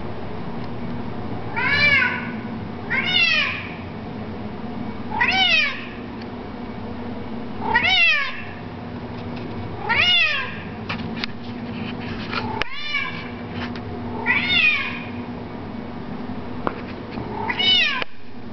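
Bengal cat meowing loudly, about eight separate calls roughly every two seconds, each rising then falling in pitch, over a steady low hum.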